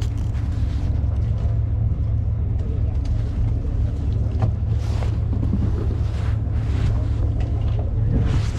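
Fishing boat's engine running with a steady low rumble, with wind gusting on the microphone.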